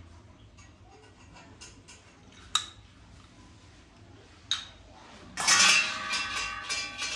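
Brass kitchen utensils being handled: scattered light clinks and two sharper knocks, then near the end a loud run of metal clattering and rattling together, with ringing tones.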